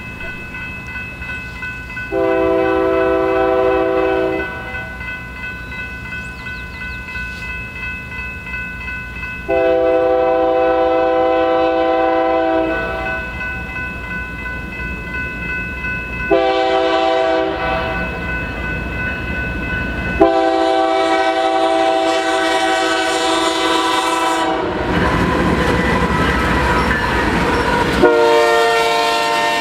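BNSF GE ES44AC 'Gevo' locomotive's Nathan K3LA five-chime air horn blowing a long, long, short, long sequence, the standard grade-crossing signal, with another blast starting near the end. Under the horn is the locomotive's diesel rumble, and the wheels clatter over the rail joints as the train passes.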